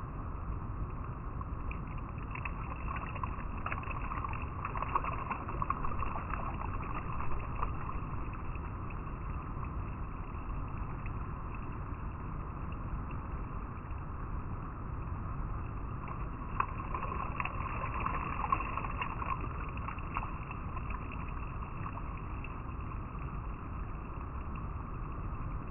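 River water flowing and rippling over rocks: a steady rush with splashing that swells twice, about four seconds in and again around seventeen seconds.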